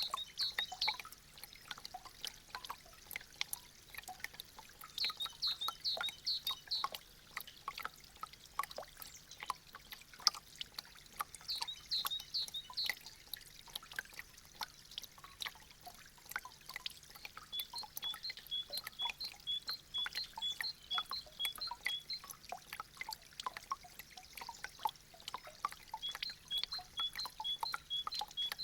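Meltwater from icicles dripping in an irregular, steady patter of drops. Over it come several bursts of high, quickly repeated chirping notes.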